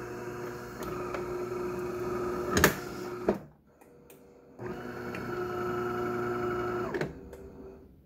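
De'Longhi bean-to-cup coffee machine running its start-up cycle before it is ready to brew, a steady mechanical hum. A click comes a little over two and a half seconds in, and the hum stops soon after. It starts again about a second later, runs for over two seconds and stops.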